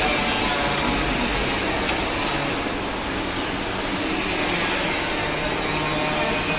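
Automatic double-sided sticker labeling machine running: a steady mechanical whir and hiss from its conveyor and belt drives as glass bottles pass through.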